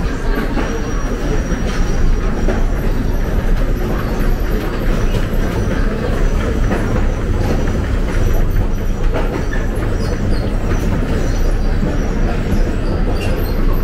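Seoul Subway Line 2 train running on the rails: a steady rumble of wheels and track, with a faint high wheel squeal coming and going.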